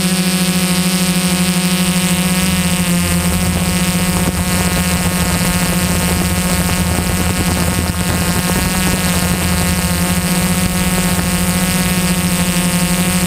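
DJI S800 EVO hexacopter's motors and propellers humming steadily in flight, recorded up close from the aircraft itself: one steady, unchanging pitch with many overtones.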